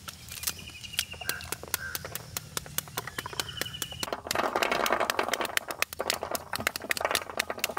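Pomegranates being broken apart by hand with crackly clicks, then, about four seconds in, a dense, louder rattle of many small hits as the seeds are knocked out and patter down into a basin. Faint high chirps sound now and then in the background.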